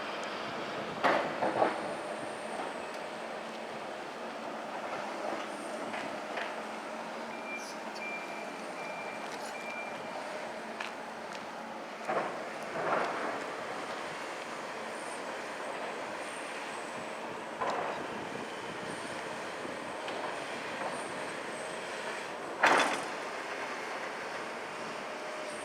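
Building demolition: heavy machinery running steadily, with several loud crashes of debris coming down, the loudest a few seconds before the end. A reversing alarm beeps briefly about a third of the way in.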